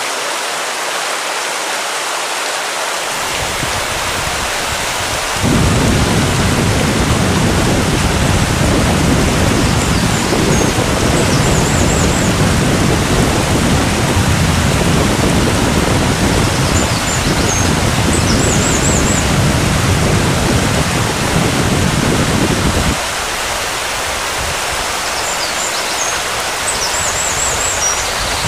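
Steady wash of small surf breaking on a sandy beach. Wind rumbles on the microphone through the middle, starting and stopping abruptly, and a few faint high chirps come through three times.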